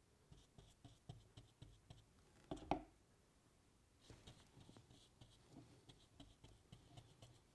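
Faint scratchy strokes and light dabs of a small glue brush spreading Copydex latex adhesive over a cork baseboard, with one brief louder sound a little under three seconds in.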